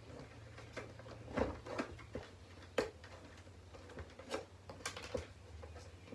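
Scattered light clicks and knocks of hard plastic on the battered alarm clock, irregular and a few to the second, with two sharper knocks about one and a half and three seconds in, over a low steady hum.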